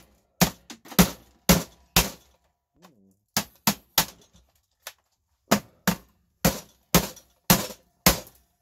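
Estwing hammer striking the plastic housing of a pod coffee machine to break it open: a string of sharp knocks, roughly two a second, in runs with a couple of short pauses.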